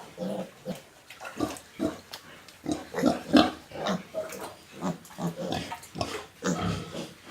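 Pigs grunting in short calls that come a few times a second, loudest about halfway through.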